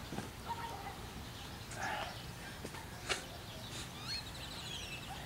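Birds chirping a few times, with a short rapid trill about four seconds in, over a steady low rumble of background noise. A single sharp click comes about three seconds in.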